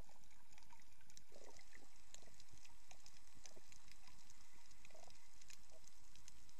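Underwater ambience over a coral reef: a steady low hiss with many faint, scattered crackles and clicks.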